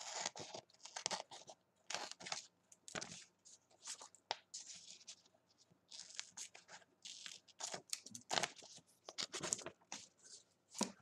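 Scissors cutting a strip from a sheet of low-tack frisket film: a run of many short, crisp snips with the sheet crinkling.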